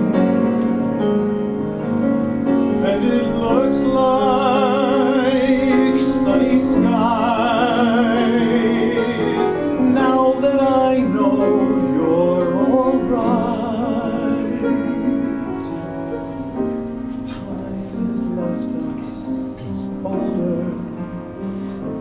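Live performance of a slow ballad between verses: sustained accompaniment chords under a wordless melody line with wide vibrato. The melody fades out a little past the middle, leaving quieter held chords.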